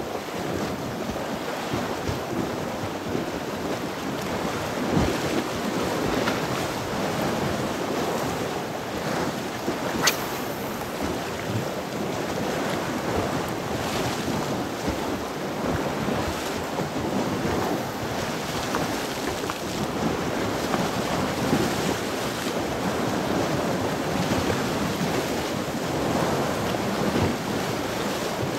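Choppy sea waves washing against the shore with wind buffeting the microphone, a steady rushing noise. A single sharp click about ten seconds in.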